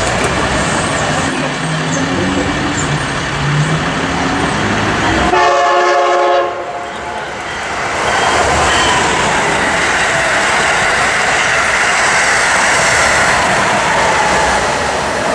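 An electric passenger train approaching with a steady rumble sounds one horn blast of about a second, a little past five seconds in. After that, an Amtrak Acela Express trainset runs past at speed with a loud, steady rush of wheels on rail.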